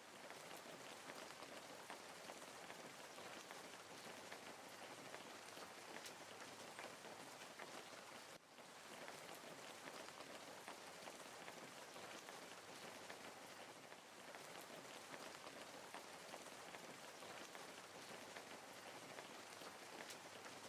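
Faint crackling of a wood fire: a steady hiss dotted with many small, quick pops.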